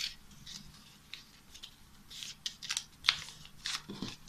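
A square of paper being folded and pressed into a crease by hand: faint, scattered paper rustles and crisp crinkles, the sharpest about three seconds in.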